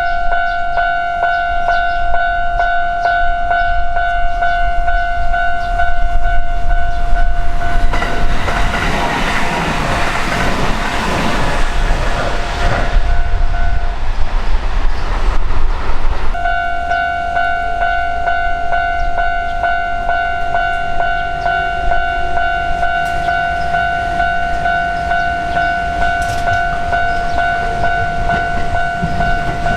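Japanese level-crossing electronic warning bell ringing in quick repeated dings while an electric train passes through, its rumble and wheel clatter loudest from about 7 to 14 seconds in. The bell cuts off just after the train clears, then starts ringing again about two seconds later, a sign that another train is coming.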